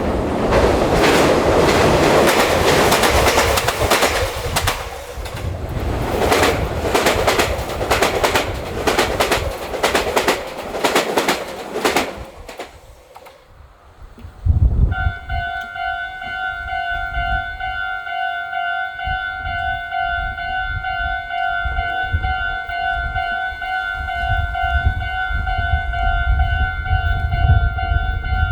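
A train passes close by, its wheels clattering rhythmically over the rail joints, and the sound cuts off about twelve seconds in. Then a Japanese level crossing alarm rings steadily with its 'kan-kan' tone, over a low rumble of wind on the microphone.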